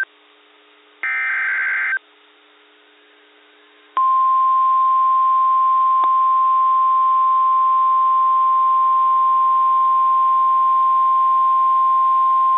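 NOAA Weather Radio alert signals for a tornado warning. About a second in comes the last one-second burst of the SAME digital header, a harsh warbling screech. After a short pause, the steady single-pitch 1050 Hz Warning Alarm Tone starts about four seconds in and holds unchanged.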